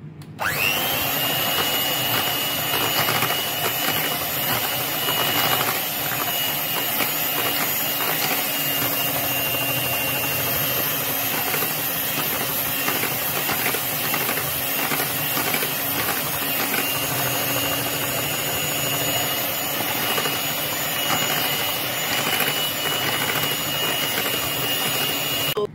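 Electric hand mixer running steadily, its beaters whisking flour into wet cake batter in a glass bowl. The motor starts about half a second in, its high whine rising briefly as it spins up, then holding steady.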